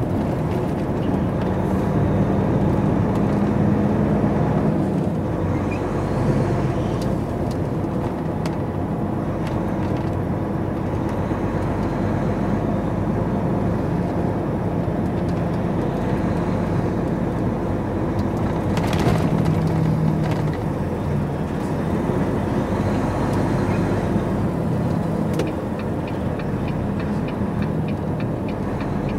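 Volvo FH truck's diesel engine heard from inside the cab, running steadily while driving at low speed, its note rising and falling with speed. Near the end a regular ticking starts, the turn indicator as the truck comes up to a junction.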